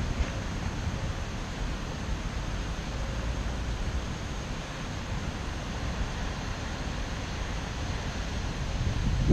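Typhoon wind blowing steadily as a constant rushing noise with a low rumble, in a lull between stronger gusts; a stronger gust comes in at the very end.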